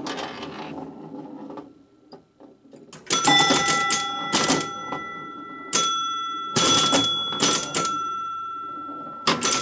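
Gottlieb Airport (1969) electromechanical pinball machine in play: a few mechanical clacks, then from about three seconds in its scoring bells are struck again and again, about eight loud strikes that each ring on with a long steady tone.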